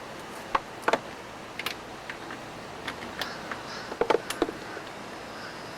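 Hand tools clicking and tapping against an outboard powerhead while stuck cylinder-head bolts are worked on: about a dozen short, irregular light knocks.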